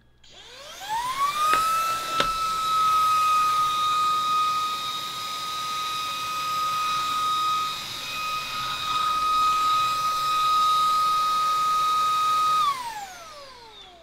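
VTOMAN ToolCore V22 cordless handheld vacuum with its floor head, picking up coffee grounds: the motor spins up with a rising whine, runs at a steady high whine over rushing air, and winds down with a falling whine near the end. Two sharp ticks sound about two seconds in.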